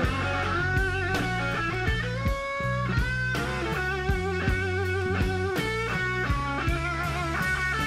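Slow electric blues played live by a band: an electric guitar lead, its held notes shaken with wide vibrato, over bass guitar and drums.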